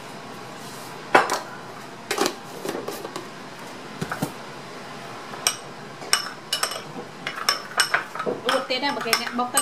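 A metal spoon clinking against a small ceramic bowl as sauce is mixed in it. A few separate knocks come first, then quicker, ringing clinks in the second half.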